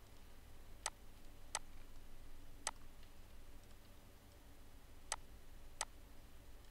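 Computer mouse clicking: five sharp single clicks at uneven intervals, over a faint low hum.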